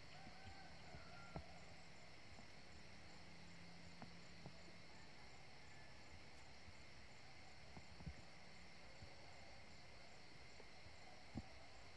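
Near silence with faint steady insect chirring and a few soft isolated clicks.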